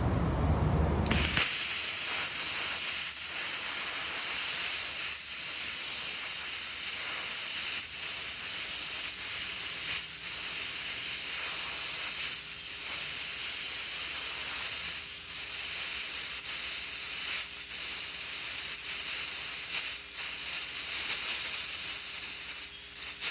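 Plasma cutter arc striking about a second in, then cutting steel with a steady, loud hiss that flutters slightly as it works around the turning LP tank.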